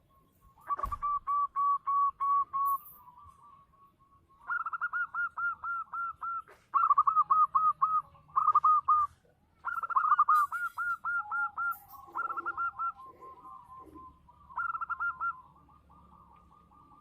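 Zebra dove (perkutut) singing: several runs of quick, staccato cooing notes, each run a second or two long with short pauses between. A second, lower-pitched voice calls for a while past the middle.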